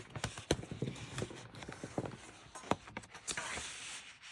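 Irregular light knocks and clicks over a low rustle, with a denser rustling stretch about three seconds in: handling noise.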